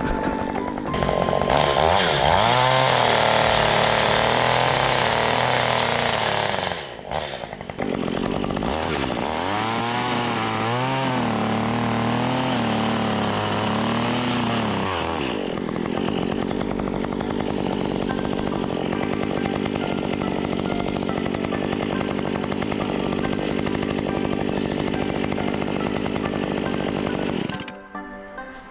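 STIHL MS 194 TC two-stroke top-handle chainsaw running. It revs up and holds high for several seconds, then is blipped up and down repeatedly, and after that runs steadily until it cuts off near the end.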